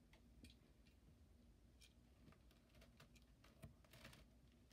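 Near silence with faint, scattered clicks of die-cast toy cars being handled on a tabletop.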